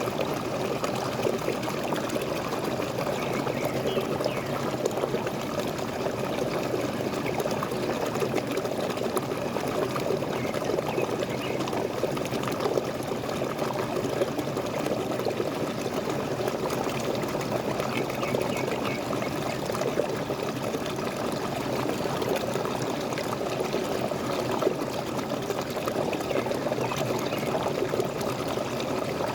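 Waterfall splashing and pouring steadily, a continuous, even rush of falling water.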